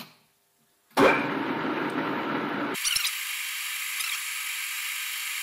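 TSB 20 metal lathe starting up and running at a higher spindle speed, the chuck spinning. The noise starts abruptly about a second in, and partway through the low end drops out, leaving a thin, even hiss.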